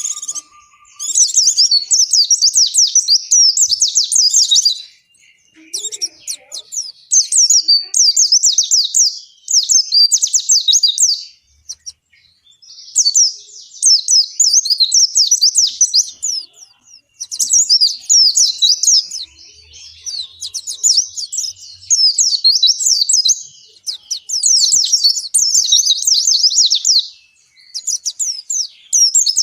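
White-eye (pleci) singing long runs of fast, high-pitched twittering, phrase after phrase with short pauses between, about eight phrases in all.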